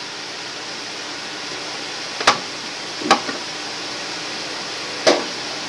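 Steady hiss of vegetables and chicken cooking in a stainless pan on the stove, broken by three sharp little pops or clicks a second or two apart.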